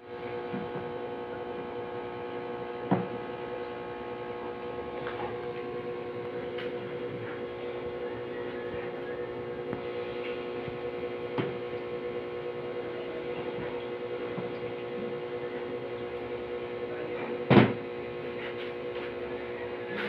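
A steady hum made of several held tones, with three sharp knocks from handling the washing machine's opened wiring and parts, the loudest near the end.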